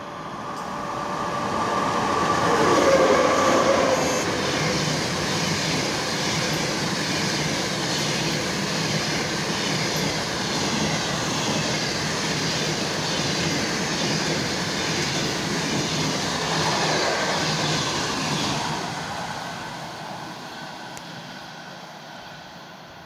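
ChS8 electric locomotive passing at speed, loudest about three seconds in, its whine falling in pitch as it goes by. A long passenger train follows, its carriages rushing past with steady wheel-on-rail noise that fades away near the end.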